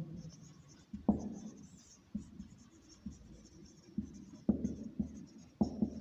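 Marker pen writing on a whiteboard: about half a dozen short strokes with pauses between.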